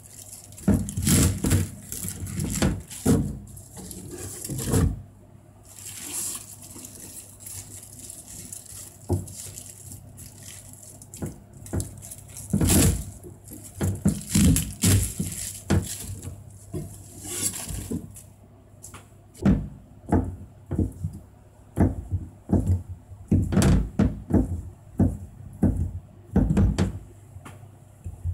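Kitchen knife cutting tatsoi and fish sausage on a plastic cutting board: irregular crisp cuts through the stalks and leaves, with knocks of the blade on the board.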